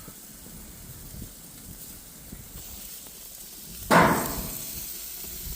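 Steaks sizzling and crackling on a barbecue grill, then one sharp clank about four seconds in that rings briefly and fades.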